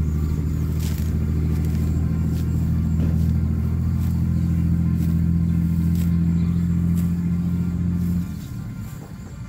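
Brush cutter engine, rigged for cutting rice, running steadily with an even low hum, then dropping off sharply about eight seconds in.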